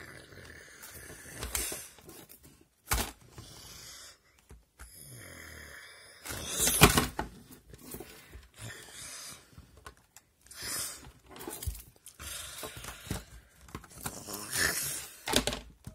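A person imitating dragons fighting with the mouth: a run of raspy growls and hisses, the loudest about halfway through, with plastic toy figures knocking together now and then.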